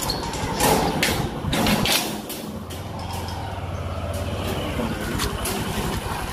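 A steady low engine hum sets in about two and a half seconds in, after a few rough scuffing noises.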